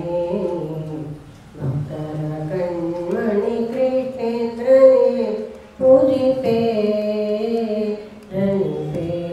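An elderly woman singing a devotional song into a microphone, one voice in long, drawn-out phrases with three short pauses for breath.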